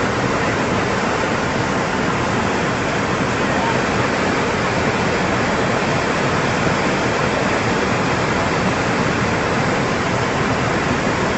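Loud, steady rush of fast-flowing floodwater, an even roar with no breaks.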